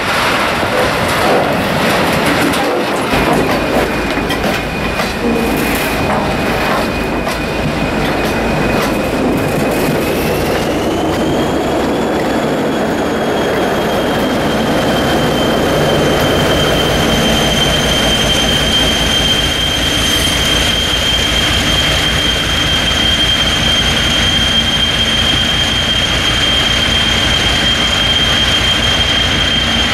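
Freight train of hopper wagons rolling slowly past, wheels clicking over rail joints. A steady high wheel squeal sets in a few seconds in, rises in pitch around ten seconds in and then holds. Under it, the TEM2 diesel-electric locomotive's engine rumbles as it passes.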